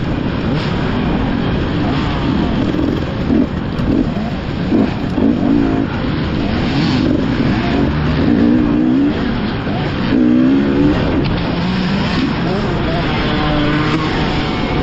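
Dirt bike engine running hard and loud, its pitch rising and falling over and over as the throttle is worked and gears change, over a steady rush of noise.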